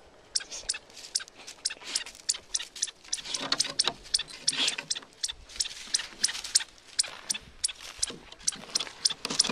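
Small terrier gnawing and scratching at the edge of a gap in weathered wooden boards, after a chipmunk below: a quick run of sharp, dry clicks on wood, about three or four a second, with a couple of breathy snuffles in the middle.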